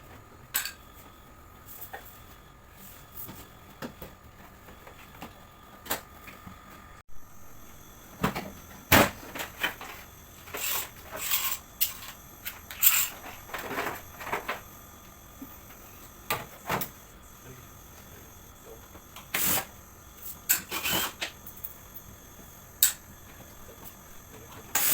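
Irregular plastic clicks and knocks as the casing of an AUX portable air conditioner is taken apart by hand.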